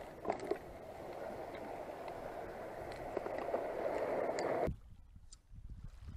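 Sea water washing against a concrete seawall, a steady wash that grows slightly louder, with a couple of light clicks near the start. It cuts suddenly to a quieter lapping about three-quarters of the way through.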